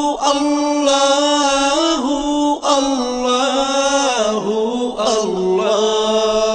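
Bengali Islamic devotional song (hamd) between verses: layered voices chanting in long held notes that glide in pitch.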